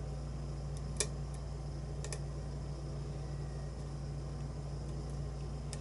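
A few short, sharp clicks of a lock pick and tension tool working the pins of a challenge lock held in a false set, about a second apart at first and then once near the end, over a steady background hum.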